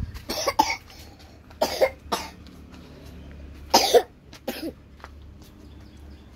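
A person coughing near the microphone: three bouts of two or three short coughs, about half a second, two seconds and four seconds in.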